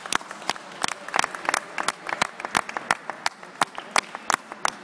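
Spectators applauding: a few dozen separate hand claps, sharp and irregular.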